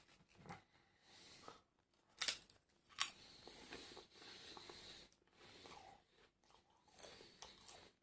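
Close-up eating sounds: crisp crunching and chewing of fried food, with two sharp cracks a little over 2 and 3 seconds in.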